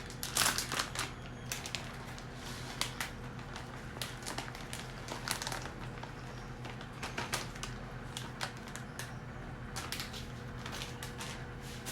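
Irregular clicks, taps and crinkling from ingredients such as shredded cheese being handled and added to a mixing bowl, over the steady low hum of a microwave oven running.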